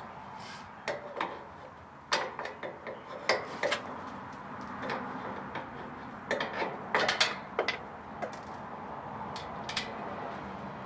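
Irregular small metallic clicks and clinks of bolts being fitted through a bumper into a portable generator's tubular steel frame, bunched about two to four seconds in and again about six to seven seconds in.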